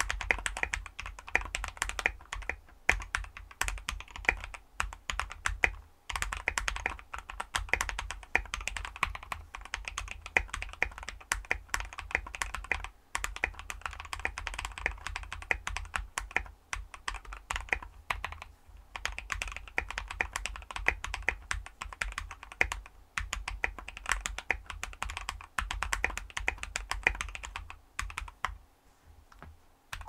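Typing on a modded Epomaker EP84 mechanical keyboard with Akko CS Silver linear switches and Tai-Hao OEM-profile PBT keycaps; the case is dampened with EVA foam and tape, and the stabilizers have the Plumber's mod. Rapid keystrokes come in continuous runs with short pauses every few seconds, thinning out near the end.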